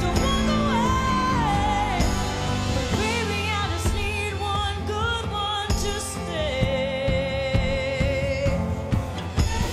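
A woman singing a slow pop ballad live into a handheld microphone over instrumental backing; in the second half she holds one long note with vibrato.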